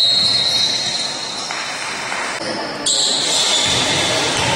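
Indoor basketball game in an echoing sports hall: the ball bouncing on the court amid general game noise, with a high squeal near the start and again about three seconds in.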